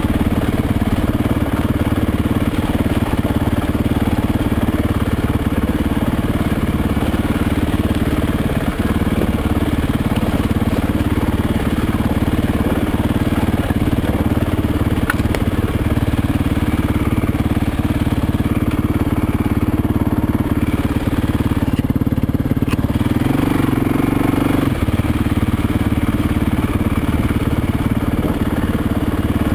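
Motorcycle engine running steadily while the bike is ridden along a rocky dirt trail. Its note shifts briefly a little over two-thirds of the way through.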